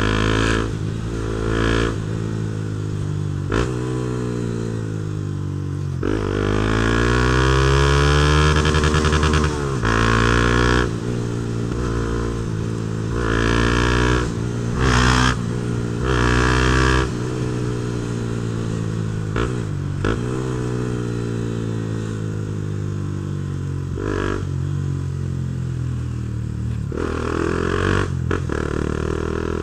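Honda CB Twister single-cylinder motorcycle engine running through a Protork aftermarket sport exhaust while riding. The engine pitch rises in a long sweep about six seconds in, several short louder blips of throttle follow, then it settles into a steadier note.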